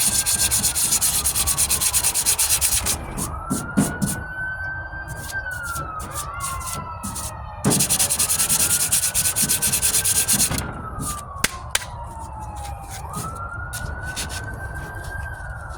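Body filler (Bondo) being hand-sanded with 80-grit sandpaper in quick back-and-forth strokes, in two bouts with a pause between, smoothing out pits before primer. Behind it a siren wails, each cycle rising quickly and falling slowly.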